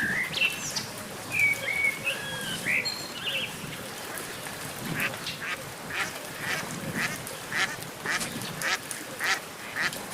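Birds calling over a steady background hiss: a few short whistled glides in the first seconds, then a steady series of short calls, about three a second, from about halfway through.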